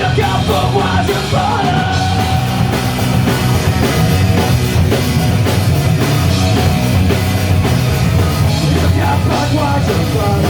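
Punk rock band playing loud live with drums, electric guitars and bass.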